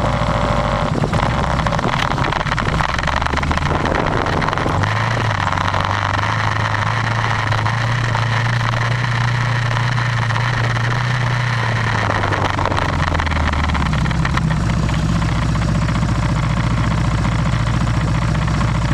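Motor vehicle engine running steadily while driving along a dirt track, with a constant noisy rumble over it. The engine note rises about five seconds in, holds, and falls back around thirteen seconds.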